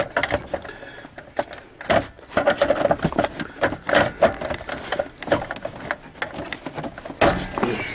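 Plastic lower dash trim panel of a 2004 Ford F-150 clicking, knocking and rattling as fingers pry at its edge to pop it out of the dash, with a louder stretch of knocks near the end.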